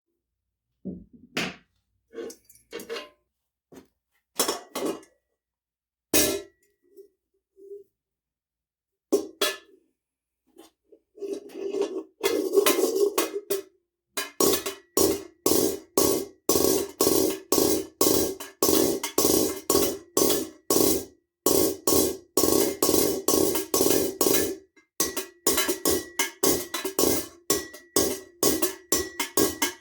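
Hammer blows on a steel armour plate worked over a ball stake to knock out a dent. There are a few scattered blows at first, then a steady run of about three blows a second from about halfway through, with a brief pause near the end.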